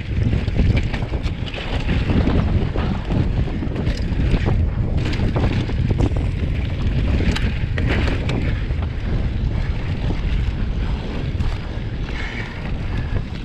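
Wind buffeting the microphone as a mountain bike rolls fast down dirt singletrack, with the tyres rumbling over the trail and scattered knocks and rattles of the bike over bumps.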